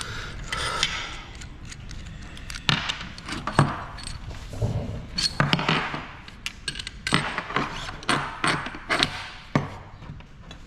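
Metal hand tools and a measuring bar clinking, clicking and knocking as they are handled and set against an aluminium manual-transmission case: a scattered series of sharp, irregular strikes.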